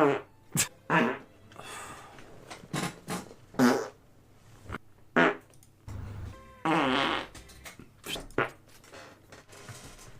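A run of human farts: several short blasts in a row, then a longer, drawn-out pitched one about seven seconds in.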